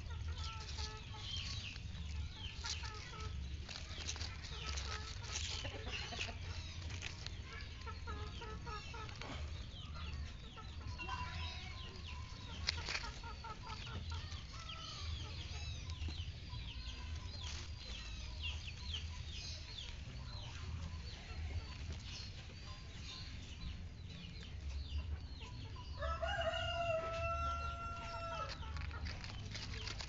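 Birds chirping in many short, quick, high notes throughout. A rooster crows once near the end, a drawn-out call that drops at its close.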